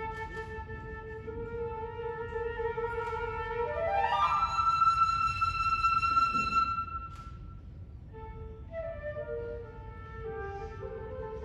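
Solo flute playing a slow, plaintive melody: a long held low note, a quick upward run to a high held note, a brief pause, then a few shorter notes stepping up and down.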